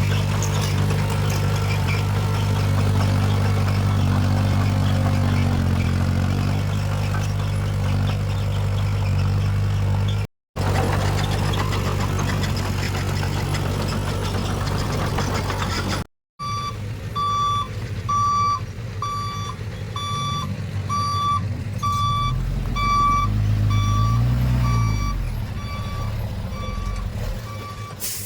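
Heavy diesel engine of earthmoving machinery running steadily under load, broken by two abrupt edit cuts. After the second cut, a reversing alarm beeps steadily, about three beeps every two seconds, over a diesel engine that revs up and back down near the end.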